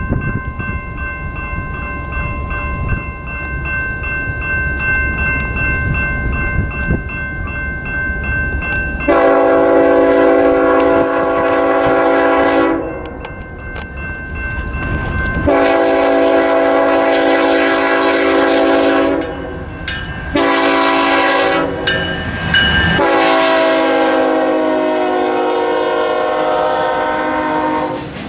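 Freight train approaching with a low rumble, then its diesel locomotive horn sounds the grade-crossing pattern: two long blasts, a short one and a final long one. The pitch drops during the last blast as the locomotive passes.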